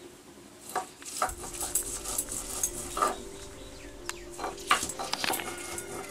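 Stone roller knocking and scraping on a flat grinding stone (shil-nora) as red chillies, onion and garlic are crushed, in irregular short strokes.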